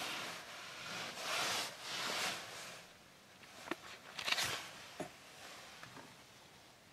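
Handling noise in a car cabin: three rustling swells, then a few sharp clicks about halfway through.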